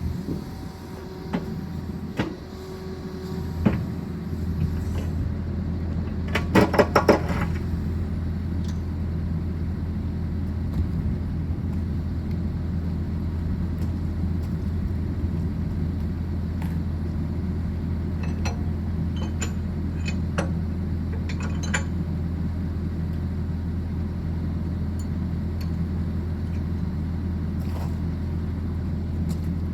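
Sany SY80 excavator's diesel engine running steadily, with scattered sharp metallic clicks and a quick rattle of clanks about seven seconds in.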